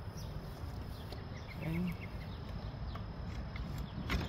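Outdoor ambience with a steady low rumble and faint short bird chirps. About two seconds in comes a brief animal call, and near the end a single sharp knock.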